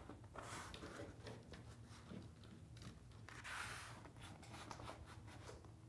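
Faint rustling and rubbing of hands pressing and smoothing a wall mural sheet against the wall, with a few soft taps and one longer rustle midway, over a steady low hum.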